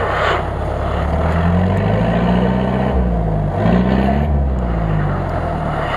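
Asia Rocsta 4x4's engine revving up twice under load, pitch climbing, dipping briefly, then climbing again before dropping back, as the vehicle strains while hung up on a fallen log.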